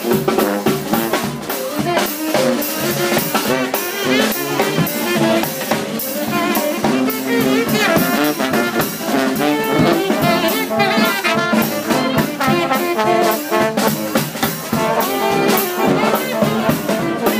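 New Orleans second-line brass band playing, with trombone, saxophone and sousaphone over a steady drum beat.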